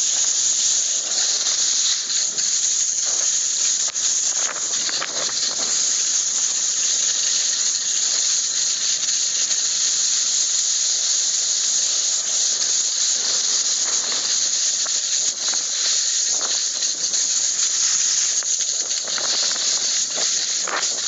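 A steady high-pitched hiss with faint irregular scraping sounds running through it.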